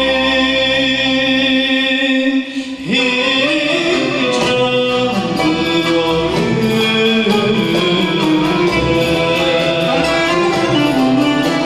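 Singing over a Turkish art music ensemble of plucked and bowed strings such as ud and violin. A long held note at the start breaks off briefly about two and a half seconds in, then the melody moves on in steps.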